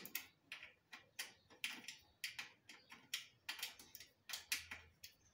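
Sharp clicks, about two a second, from a 5 mm Allen key tool being turned to tighten the bolt that holds a V-brake pad.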